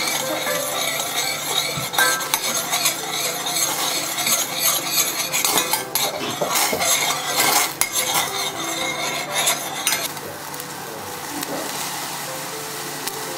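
Metal spoon stirring and scraping around a stainless steel pot of cola boiled down to a thick, bubbling syrup, with many small clinks over the sizzle. About ten seconds in the stirring stops, leaving only the quieter sizzle and bubbling of the syrup.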